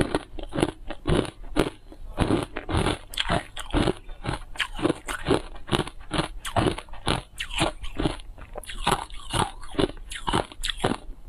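Hard ice coated in matcha powder being bitten and chewed: an irregular run of sharp, crisp crunches, about two or three a second.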